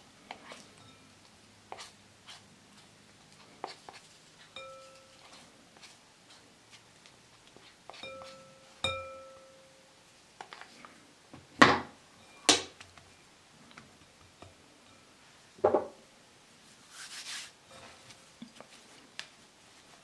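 Silicone spatula scraping and knocking against a glass mixing bowl while gathering stiff scone dough. Scattered taps, with two louder knocks about halfway through; the glass bowl rings briefly a couple of times.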